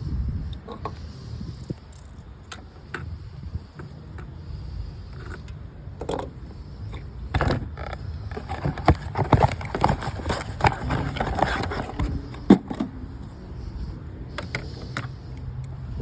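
Car engine running with a steady low rumble, with a stretch of metallic clicking and rattling in the middle and a sharp knock near the end of it.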